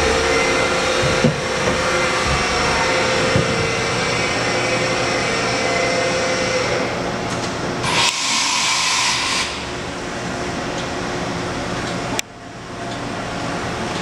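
Haas VF-2 CNC vertical machining center running under power: a steady whir with several whining tones, then a hissing burst of about a second and a half a little past the middle. Near the end a sharp click is followed by a brief dip in the sound.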